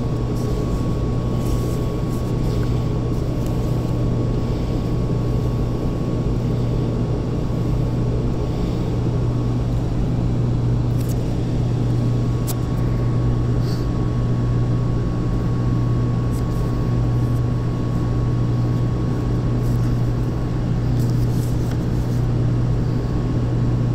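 Steady low hum of running industrial machinery with a faint thin whine above it and a few light ticks.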